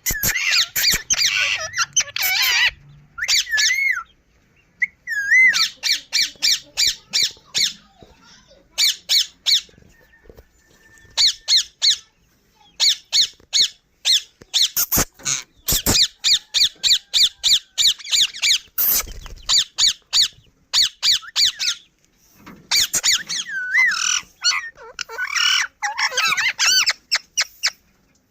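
Parrot chicks squawking in rapid runs of short, high calls, broken by brief pauses: the begging calls of chicks at feeding time.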